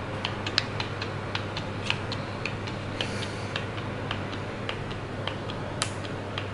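Youha The Ins wearable breast pump's motor running, ticking rapidly at about four clicks a second over a low steady hum.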